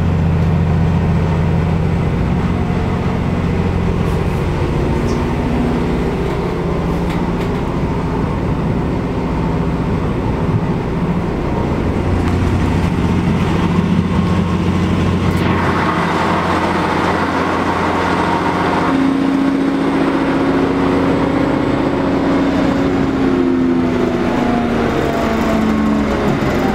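Passenger-saloon sound of a Stadler FLIRT diesel multiple unit under way: a steady diesel engine drone with running noise. Near the end a whine rises in pitch.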